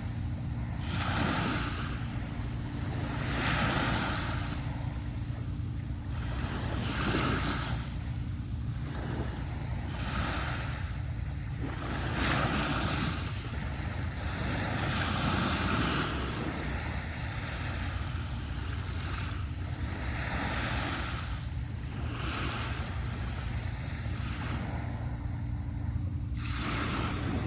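Small waves breaking and washing up a sandy beach one after another, a hissing wash every couple of seconds over a steady low rumble of surf.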